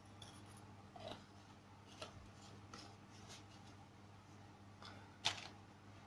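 Faint clicks and taps of plastic pump-dispenser bottles and their metal pump tops being handled on a desk, with a sharper click about five seconds in.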